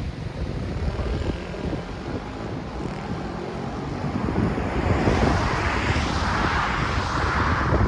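Wind buffeting the microphone, with a rushing vehicle noise that builds from about halfway through and is loudest near the end.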